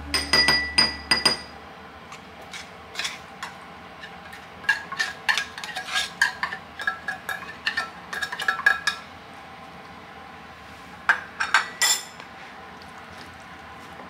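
A rice paddle knocking and scraping against a mixing bowl while cooked rice is being mixed. The clinks are sharp with a brief ring and come in clusters: near the start, through the middle, and again a couple of seconds before the end.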